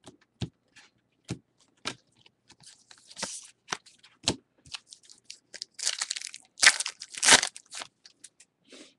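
Trading cards being handled, a series of short sharp clicks, then the foil wrapper of a trading-card pack crinkling and tearing, loudest about six to seven and a half seconds in.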